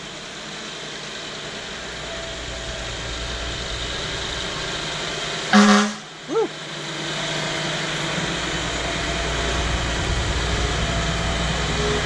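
Fire engine approaching slowly, its engine getting louder as it nears. About halfway through comes one short, loud horn blast, then a brief rising-and-falling siren chirp.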